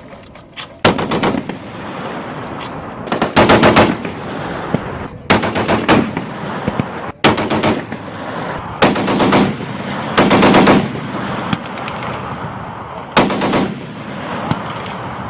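M2 .50-calibre heavy machine gun firing about seven short bursts of a few rounds each, spaced a second or two apart, with the reports echoing between bursts.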